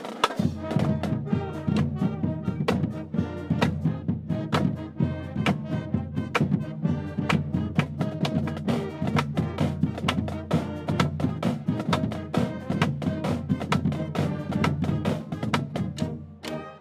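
Student marching band playing an up-tempo tune: sousaphones, saxophones, trumpets and flutes over a steady, driving drum beat.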